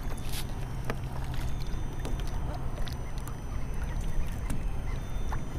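Wind rumbling on the microphone over water lapping against a plastic kayak hull, with a few light clicks and knocks scattered through.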